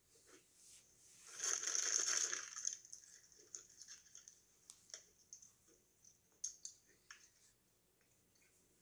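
Plastic cookie tray and wrapper of an Oreo package crinkling in one burst of about a second and a half, then light clicks and rustles as a cookie is taken out.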